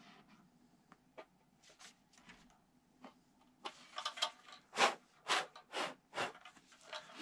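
Faint clicks of a part being handled, then, from about halfway, a series of short sharp puffs of breath, about two a second, blown into the hinge pockets of a model airplane's tail surface.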